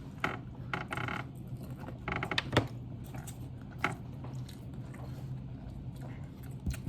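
Scattered clicks, crinkles and light knocks from handling fast-food packaging and cups while eating, with a few sharp crackles.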